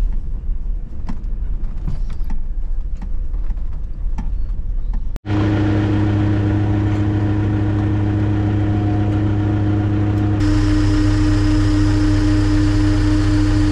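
Car cabin rumble with small rattles while driving a rough track. About five seconds in it cuts abruptly to a steady engine drone with a clear hum. About ten seconds in the drone shifts slightly to a steady diesel idle, heard from inside the Hitachi Zaxis 280 excavator's cab.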